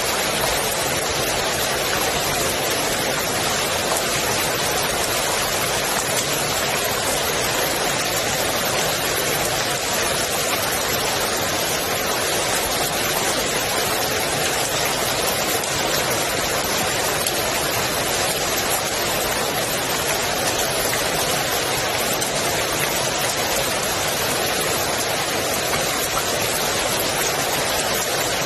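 Steady rain falling on a swimming pool's water surface, an even hiss of many drops with no let-up.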